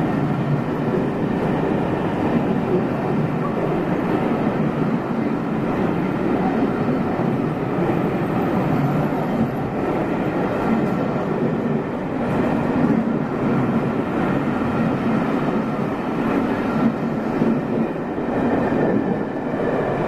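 Train running past at a steady speed, a continuous rumble of wheels on rails.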